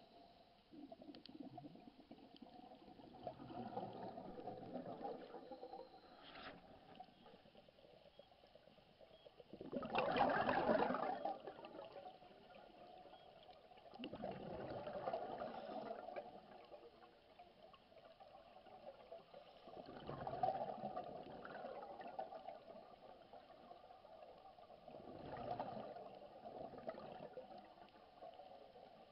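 A scuba diver's exhaled breath bubbling out of the regulator underwater. There are five bubbling bursts, about one every five seconds, following his breathing; the loudest comes about ten seconds in.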